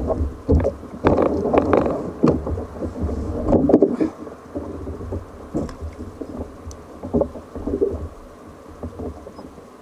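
Wind rumbling on the microphone, with scattered knocks and rustling as gear is handled on a plastic fishing kayak. It is loudest for the first four seconds, then quieter with only a few isolated knocks.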